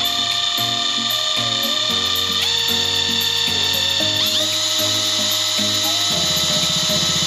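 Mustool cordless brushless impact wrench spinning free with no load. Its motor whine steps up in pitch twice as the speed setting is switched higher, up to top speed. Background music plays under it.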